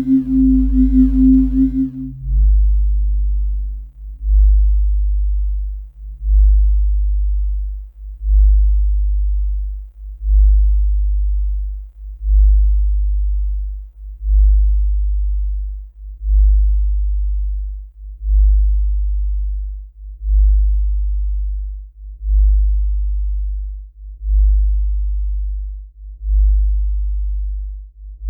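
A deep electronic tone pulsing about once every two seconds, each pulse swelling quickly and then fading. Higher, steadier tones die away in the first few seconds.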